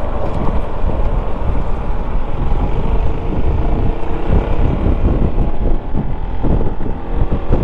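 Wind buffeting a helmet-mounted microphone over the running single-cylinder engine of a Yamaha XMAX 300 scooter while riding, heavy and rumbling, with a faint steady engine tone coming through in the middle.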